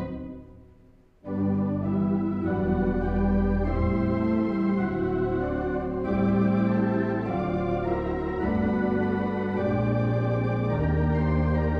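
Church organ played from a three-manual console: a held chord fades away into a pause of about a second, then playing resumes with sustained full chords whose notes change every second or so over a deep bass.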